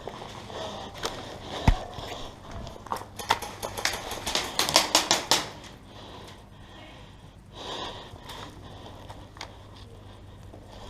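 Airsoft gunfire: scattered sharp snaps, with a quick string of about five shots in under a second around the middle, over soft breathing.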